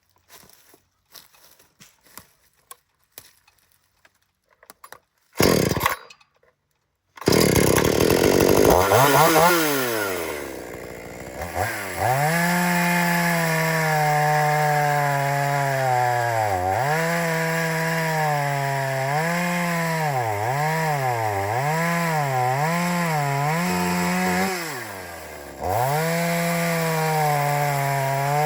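Two-stroke gas chainsaw starting up about seven seconds in, after a few quiet seconds and a short loud burst. It then runs at high revs cutting through a log, its pitch dipping again and again as the chain loads up in the wood, and drops briefly near the end before revving back up.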